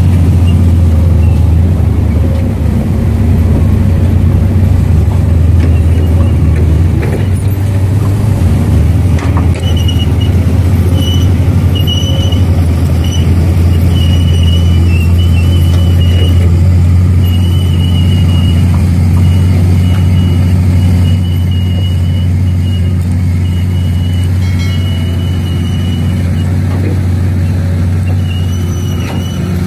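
Heavy diesel earthmoving machinery, most likely an excavator, running steadily under load with a deep engine drone. From about a third of the way in, a thin high squeal comes and goes repeatedly over the drone.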